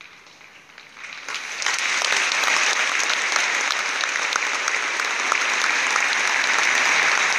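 A large stadium crowd breaks into applause about a second in, out of a hush, and within a second is clapping at full strength, holding steady. This is the applause that closes a minute's silence.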